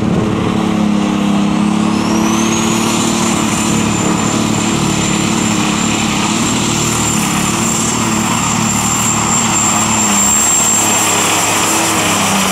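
Modified pulling tractor's engine running loud. A high whine rises over about a second and a half, starting about a second and a half in, then holds steady at a high pitch.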